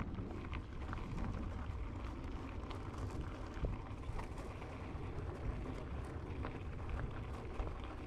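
Mountain bike riding on a dirt trail: wind buffets the microphone with a steady low rumble, and the tyres and the bike's parts make many small scattered clicks and rattles.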